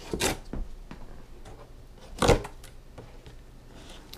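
Cardboard shipping box being cut open with a knife: the blade slits the packing tape and scrapes across the cardboard in a few short bursts, the loudest about two seconds in.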